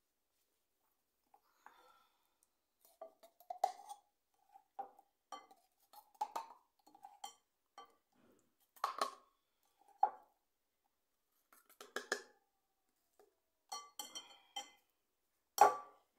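Light clinks and taps of kitchen utensils on dishes and a baking tray, a dozen or so scattered strokes with pauses between them, the loudest one near the end.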